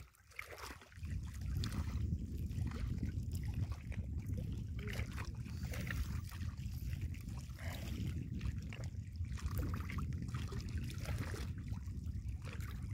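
Wind buffeting the microphone: a low, gusty rumble that starts about a second in.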